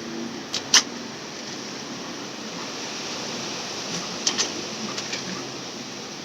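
Slingshot shooting: a pair of sharp cracks just under a second in, the louder, and another pair about four seconds in, over a steady background hiss.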